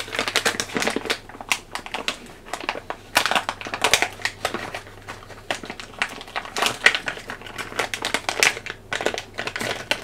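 Irregular crinkling and clicking handling noise: a dense run of small clicks and rustles, with short lulls about two and six seconds in.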